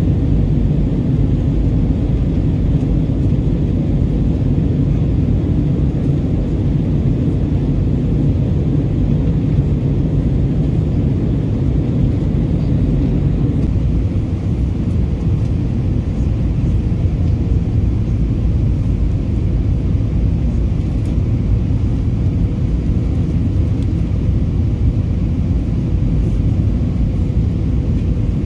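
Steady cabin noise of an Airbus A321 in flight, heard from inside the cabin: a constant low-heavy drone of the engines and rushing air, dipping slightly in level about halfway through.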